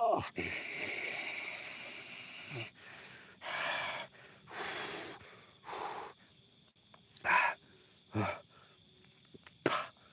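A person breathing heavily: a long breathy exhale, then a string of separate short breaths and gasps a second or so apart.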